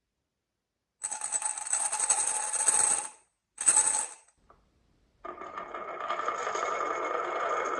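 Marbles clattering and rattling along a marble run track in a two-second burst, then a short second burst; about five seconds in a steady whirring rolling noise starts and keeps going.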